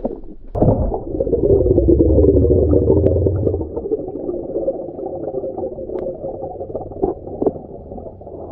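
Muffled underwater gurgling and churning of water, with bubbles, as a swimmer kicks past an underwater camera. It is louder with a deep rumble for the first few seconds, then settles lower, with a couple of sharp clicks later on.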